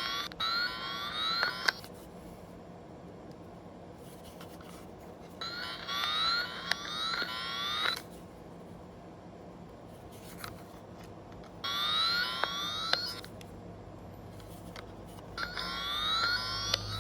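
Electronic circuit tester beeping in four bursts, each a warbling tone of rapidly repeated rising sweeps, a few seconds apart, with faint clicks between them as the probe is worked along the wires.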